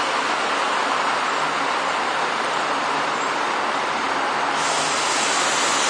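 An Irish Rail 29000-class diesel multiple unit runs into the platform, a steady rumble of engine and wheels. A sharp hiss comes in suddenly near the end.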